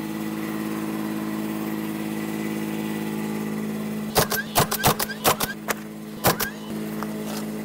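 A motor running with a steady, even hum. About halfway through come several sharp knocks from shingle roofing work.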